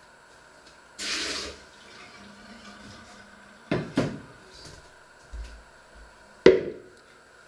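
A short burst of running tap water about a second in, then sharp knocks of things being handled: two close together around the middle and a louder one near the end.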